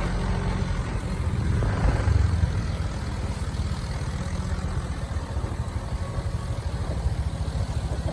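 Vehicle engines running steadily at low speed on a rough dirt track, a low rumble from the loaded sugarcane truck and the camera's own motorcycle, briefly louder about two seconds in.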